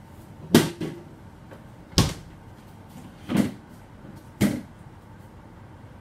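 Five sharp knocks at uneven intervals; the loudest come about half a second in and at two seconds.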